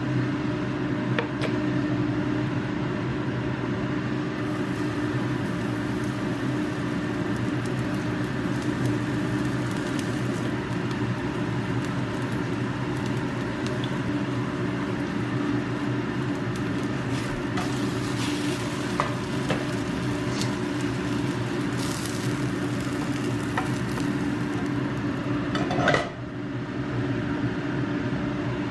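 Food sizzling steadily in a frying pan, with a few short clicks, the loudest about 26 seconds in.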